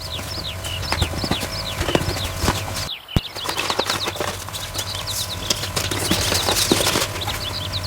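Paper dragon puppet's folded-paper jaws clacking rapidly and irregularly, with a string of short, high, falling chirps repeating a few times a second above the clacks. The sound breaks off briefly about three seconds in.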